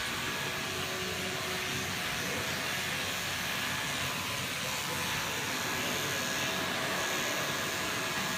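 Steady, unbroken hiss and hum of electric dog-grooming equipment running, a motor-driven air sound with a few faint steady tones.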